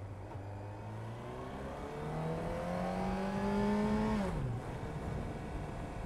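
Honda CBR929RR Fireblade's inline-four engine through an Erion Racing full exhaust, accelerating with the revs climbing for about three seconds. About four seconds in the throttle is shut and the revs drop quickly back to a low note.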